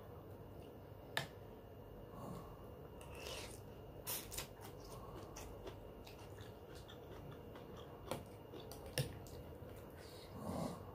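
A metal spoon clinking a few times against a ceramic soup bowl, with quiet mouth sounds of eating spoonfuls of rawon soup with rice.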